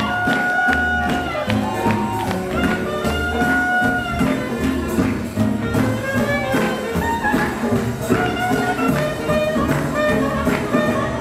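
Up-tempo swing jazz instrumental passage: long held horn notes over a steady bass and drum beat, with no singing.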